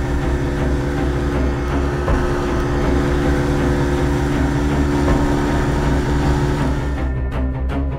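Rigid-hull inflatable boat's engine running steadily at speed, with the rush of its wash. About a second before the end the boat noise drops away and music with a steady beat takes over.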